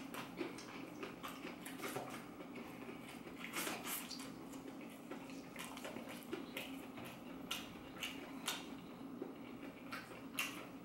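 Chewing and crunching of a fried, Flamin' Hot Cheeto-crusted mac and cheese stick, with irregular crisp crackles as pieces are broken off by hand and eaten, over a faint steady hum.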